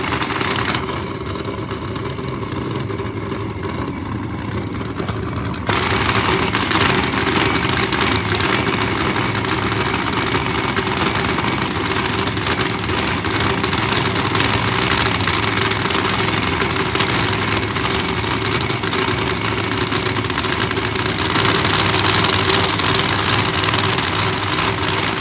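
Drag-racing funny car engines idling at a loud, steady pitch, with no revving. The upper part of the sound drops away abruptly about a second in and returns sharply near six seconds.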